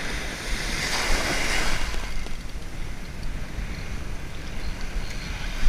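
Surf washing in over the shallows, swelling to a rush about a second in and then easing off, with wind on the microphone.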